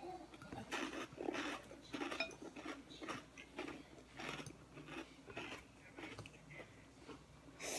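A plastic fork scraping and tapping in a glass salad bowl, mixed with chewing and crunching of salad. It comes as a string of short scrapes and crunches, a little more than one a second.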